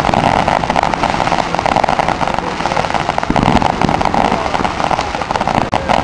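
Fireworks going off in a dense, continuous crackle over a steady hiss.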